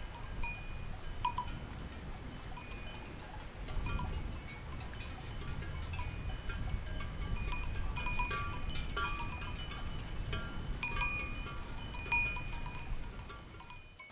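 Cowbells on grazing cattle clanking irregularly, several bells ringing at once. The clanking is sparse at first and grows busier from about four seconds in.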